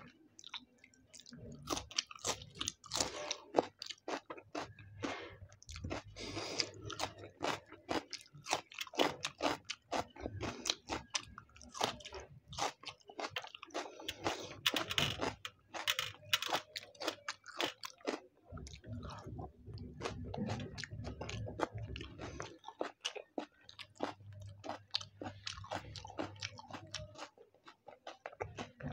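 Close-miked chewing of chicken biryani, with crisp crunching of raw onion slices and wet mouth clicks throughout.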